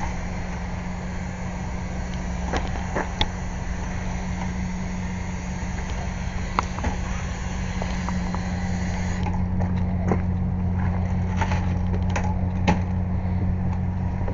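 An air compressor runs steadily with a low hum, under a few sharp clicks and knocks. Its upper hiss drops away about two-thirds of the way through.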